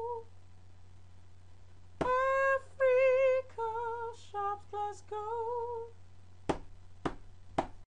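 A woman singing a short a cappella jingle in a high voice, with held, wavering notes, over a steady low hum. Near the end come three sharp clicks about half a second apart, and then the sound cuts off abruptly.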